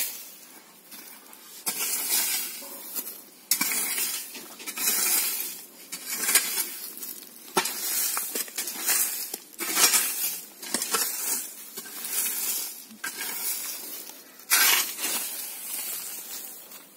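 A long-handled garden tool raking and scraping through dry grass and debris in repeated, irregular strokes, with occasional clinks.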